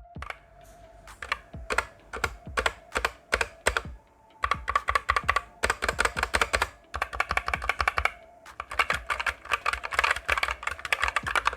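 Typing on a Gamakay MK61 60% mechanical keyboard with Gateron Red optical linear switches and pudding keycaps: rapid runs of key clacks in three stretches, with short pauses about four and eight seconds in. The larger keys sound slightly different from the small ones, which the owner puts down to the stabilizers and their lubrication.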